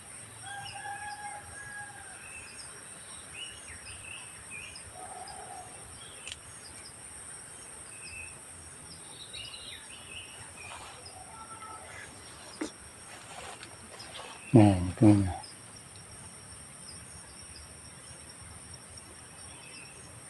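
Steady high-pitched drone of crickets or other insects, with scattered bird chirps and calls over it. About three-quarters of the way through come two short, loud, low-pitched sounds about half a second apart.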